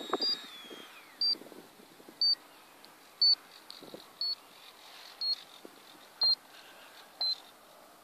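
Short, high electronic beeps about once a second, each stepping slightly lower in pitch. In the first second the high whine of the Changesun 10-blade 70mm electric ducted fan with its BL-32 motor falls away as it is throttled down.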